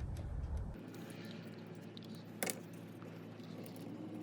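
Faint clicks and handling noise of small stainless hardware as a nylock nut is threaded by hand onto a screw, with one sharper click about halfway through.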